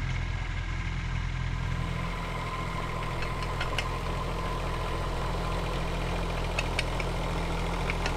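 Kubota U10 mini excavator's diesel engine running steadily as the machine tracks along, with a few short light clicks mixed in.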